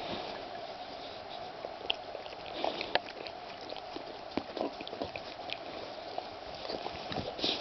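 A pet licking another animal's fur, with irregular wet clicks and smacks of the tongue, and a breathy sniff near the end.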